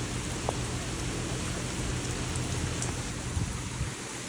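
Steady rain falling, an even hiss, with a low rumble underneath that drops away near the end.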